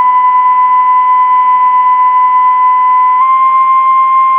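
NOAA Weather Radio's 1050 Hz warning alarm tone: one loud, steady, high tone that nudges very slightly higher about three seconds in. It is the signal that an emergency warning broadcast follows.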